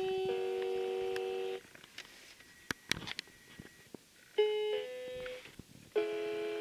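Cheap electronic keyboard playing three held chords in a thin, beep-like tone, with small clicks in the gaps between them.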